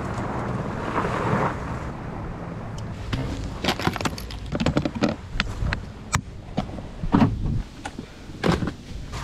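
Wind on the microphone for the first couple of seconds, then a run of irregular clicks, knocks and rattles as gear is handled and loaded.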